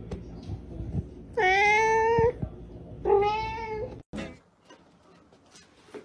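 Domestic cat meowing twice: two long drawn-out meows about a second and a half apart, followed by a few faint knocks.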